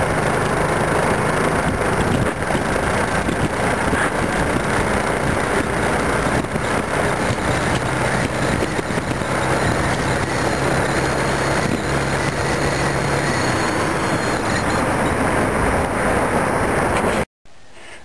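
Loud, steady rush of wind and road noise from riding a motorcycle at road speed, with a faint engine hum underneath. It cuts off suddenly near the end.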